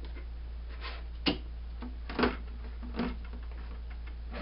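Stacked plastic mesh-bottomed extraction bowls knocking and clacking as they are lifted apart off the bucket stack: a handful of separate sharp knocks, the loudest two about a second apart, over a steady low hum.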